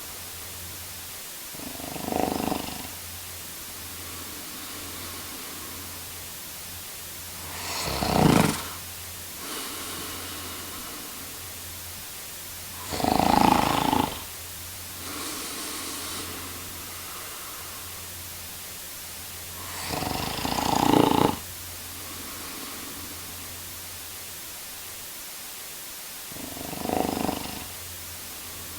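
A man snoring: five loud snores about six seconds apart, each lasting about a second. A softer breath follows several of them, over a steady background hiss.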